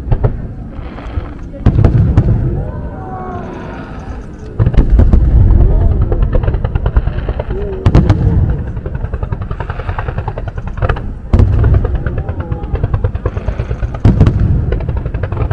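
Aerial fireworks shells bursting about every two to three seconds, each a deep boom with a rumbling, crackling tail. The voices of a crowd of spectators are heard between the bursts.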